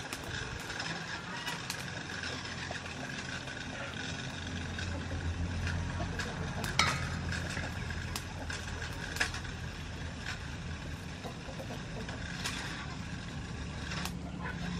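Soft handling sounds of a squid being stuffed by hand with minced pork and potato filling, with a few sharp clicks of a chopstick against a stainless steel bowl. Under it runs a steady low hum.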